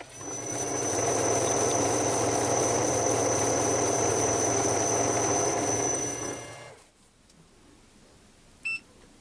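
An electric power tool's motor starts, runs steadily with a thin high whine for about six and a half seconds, then winds down and stops. A short electronic beep sounds near the end.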